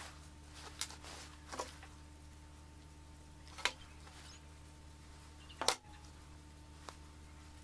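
A handful of separate sharp clicks and knocks from a hot glue gun and small earring parts being handled and set down on a workbench. The loudest knock comes about three-quarters of the way through, over a steady faint hum.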